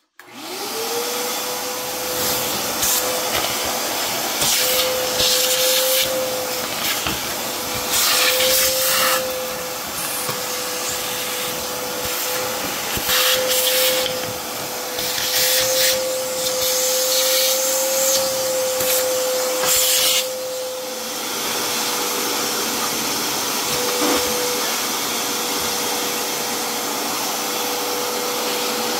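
Shop vacuum starting up, its motor whine rising quickly to a steady pitch, then running with a strong rushing hiss. Dirt and old nest debris being sucked through the hose give several short rattling, hissy surges in the first twenty seconds before it settles to a steadier run.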